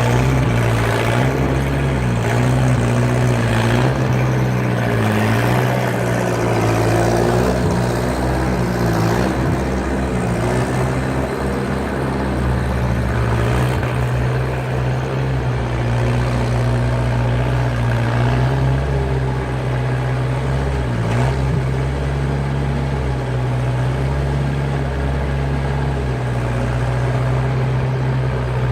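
Skid steer loader's engine running steadily under load. Its pitch wavers over the first third and dips briefly about two-thirds of the way through.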